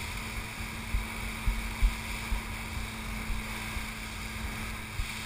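Fast rescue boat running at speed through swell: a steady engine hum under wind on the microphone and water rushing along the hull, with several low thumps about one to two and a half seconds in.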